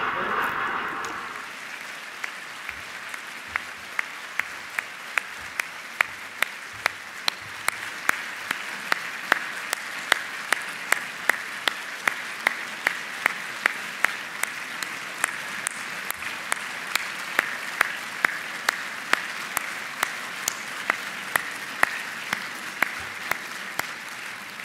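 Audience applauding, with one person's loud claps close to the microphone at a steady two or so a second.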